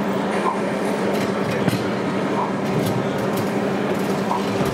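Steady mechanical hum of O gauge model trains running, with a faint click about every two seconds.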